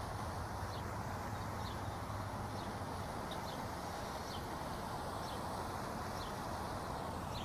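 Steady outdoor background noise at a pond's edge, with a short high chirp repeating about once a second.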